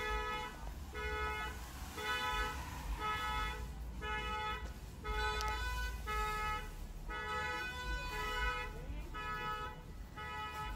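A car alarm sounding the car's horn in a steady pattern of about one half-second honk each second.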